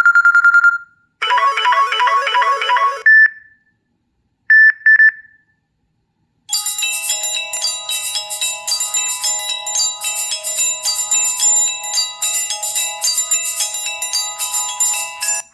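Samsung Galaxy S4 preloaded ringtones playing. First come a few short electronic chime and beep phrases separated by brief silences. From about six and a half seconds in, a longer, busy melodic ringtone plays on without a break.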